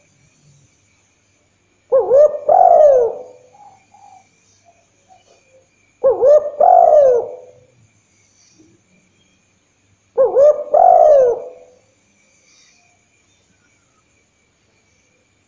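Spotted dove cooing: three phrases about four seconds apart, each a short note followed by a longer coo that falls in pitch.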